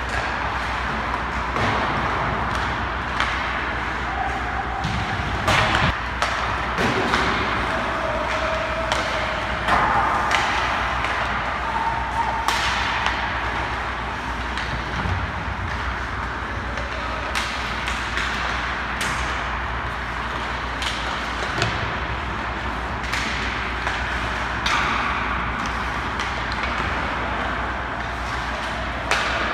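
Ice hockey practice on an indoor rink: skate blades scraping the ice and the sharp clacks of sticks, pucks and the goalie's pads, a dozen or so knocks scattered over a steady low hum.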